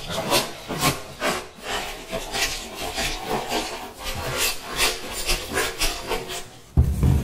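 Small loose camera parts rattling and scraping inside a cardboard box as it is handled and turned, in quick irregular strokes, with a louder low thump near the end.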